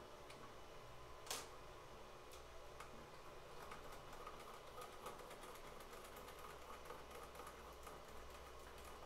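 Faint, irregular clicks and light tapping of small 3D-printed plastic parts being handled while the chopper on a model siren is swapped out, with one sharper click about a second in.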